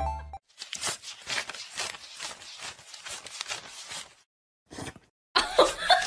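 Hands flicking through a stack of banknotes as they are counted: a quick, uneven run of papery flicks and rustles that stops about four seconds in.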